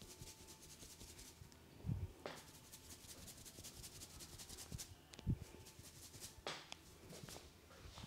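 Hands rubbing the scalp and stroking hair during a head massage: soft, quick, rhythmic rubbing strokes, with two low thumps.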